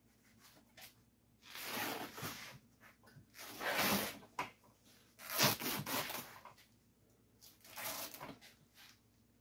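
Rotted burlap and seat stuffing being ripped and pulled off a rusty coil-spring seat frame, in four rustling, tearing pulls of about a second each.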